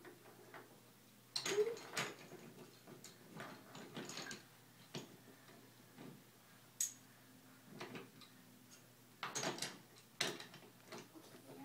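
Wooden toy train set pieces clicking and knocking against the track and table as a child handles them: irregular light clacks with short gaps between.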